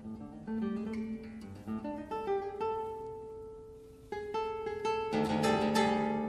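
Solo classical guitar, a 1976 Miguel Rodriguez "Churchdoor" with cedar top and Brazilian rosewood back and sides, playing plucked melodic runs with a brief pause about four seconds in. Near the end come loud, quickly repeated strummed chords that ring on.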